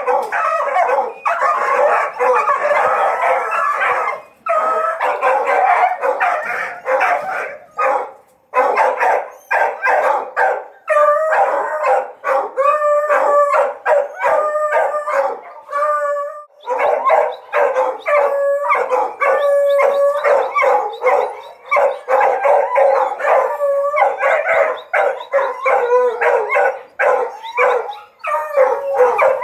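Several hunting dogs barking and howling together in rapid, overlapping volleys, with long wavering howls mixed in through the middle stretch. They are worked up by a live paca, their quarry, in front of the kennels.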